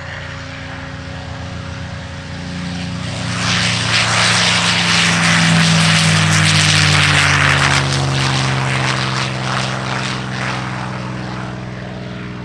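P-51D Mustang's Packard Merlin V-12 engine and propeller at takeoff power as the plane rolls, lifts off and climbs out past. The sound swells to its loudest in the middle, the engine note drops in pitch as it goes by, then it fades.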